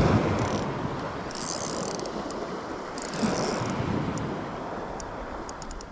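Drag of a Shimano Vanford 2500 spinning reel buzzing in three bursts, a short one then two longer ones, as a large hooked fish strips braided line off the spool. A few sharp ticks come near the end, and wind buffets the microphone throughout.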